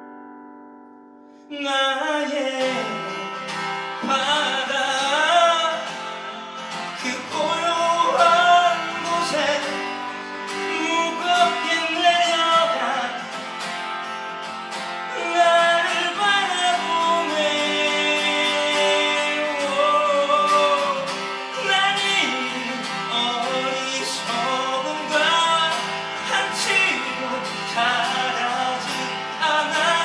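A man sings in Korean while playing an acoustic guitar. A held guitar chord fades out at first, then the strumming and the voice come in together about a second and a half in.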